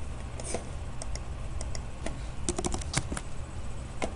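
Typing on a computer keyboard: scattered keystrokes, with a quick run of them about two and a half seconds in, over a steady low hum.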